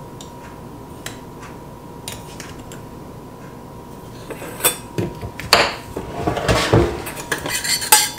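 Metal spoon clinking and scraping in a small stainless steel saucepan as sugar is spooned onto dry glaze powder and mixed in. It starts about halfway through, after a quiet stretch with a few faint clicks, and grows busier toward the end.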